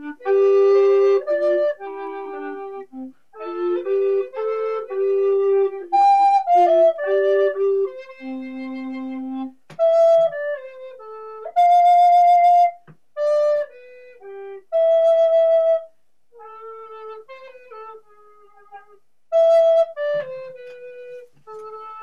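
Closing music: a slow solo melody on a flute-like wind instrument, single notes, some held long, with short pauses between phrases.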